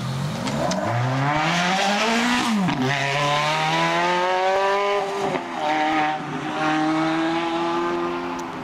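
Ferrari V8 sports car pulling away and accelerating hard, the engine note climbing in pitch through the gears with two quick upshifts, about a third and two-thirds of the way through. The sound drops away near the end as the car recedes.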